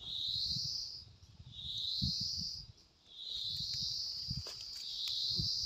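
Insects calling: a buzzy chirr that rises in pitch, repeated about every second and a half, the last one drawn out longer. Soft low thuds and rustling in dry leaves sound underneath.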